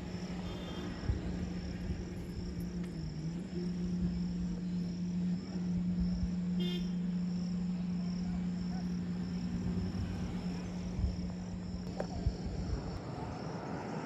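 Insects chirping in a high, evenly pulsing rhythm, over a steady low hum that dips in pitch briefly about three seconds in.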